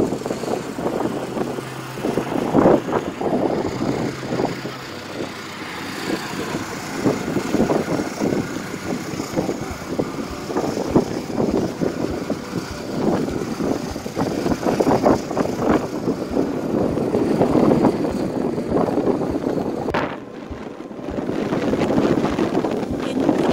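Strong wind blowing in irregular gusts, rising and falling, easing off briefly about twenty seconds in.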